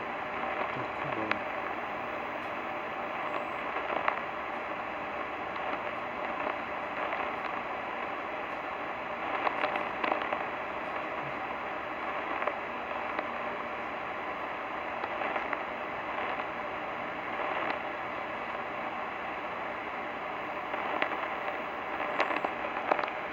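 Radio receiver static: a steady hiss with scattered crackles and clicks, heard between broadcasts.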